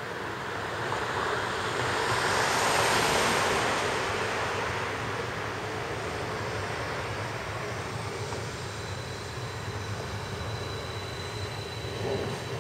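Electric train running over the elevated concrete railway viaduct overhead: a broad rushing rumble that swells to its loudest a few seconds in, then carries on steadily. A faint, high, steady whine joins about two-thirds of the way through.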